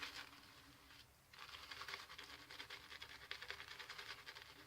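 Shaving brush loading Le Pere Lucien cedar-patchouli shave soap: a faint, fast scratchy patter of wet bristles swirled over the soap as it begins to lather. It breaks off briefly about a second in, then carries on.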